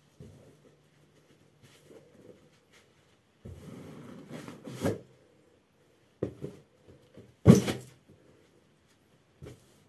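Latex party balloons being stomped with a socked foot on carpet. The rubber squeaks and strains under the foot and then bursts with a sudden pop. A second, louder pop comes about three quarters of the way through.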